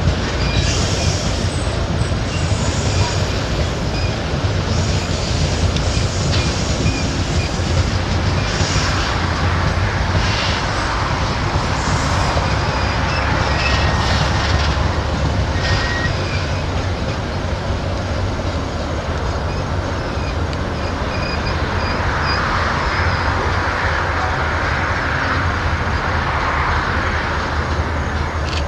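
Loaded iron-ore train of open ore wagons rolling by slowly on a curve: a steady low rumble of wheels on rail, with short, thin wheel squeals from time to time.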